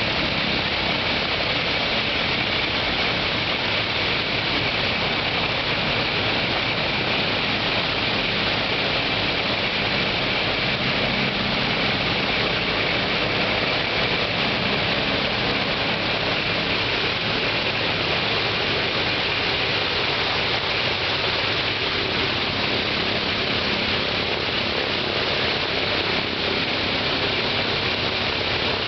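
Shvetsov ASh-82T radial engine of an Ilyushin Il-14T running steadily on the ground with its propeller turning, in the engine's first run. The 14-cylinder twin-row radial holds a constant speed.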